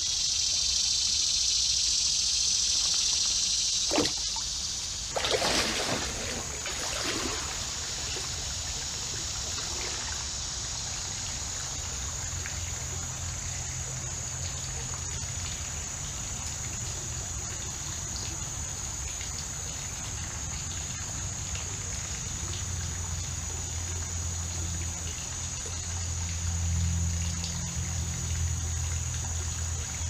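Creek water trickling and rippling, with a sharp click about four seconds in and a splash a second later. A steady high hiss runs underneath.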